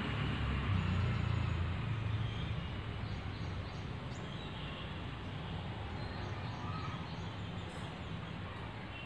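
Outdoor ambient noise: a low rumble, strongest in the first two seconds and then easing, with a few faint high chirps.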